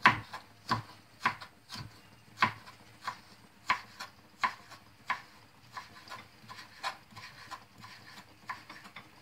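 A knife cutting on a wooden chopping board in a steady series of sharp strokes, a little more than one a second, that grow fainter about halfway through.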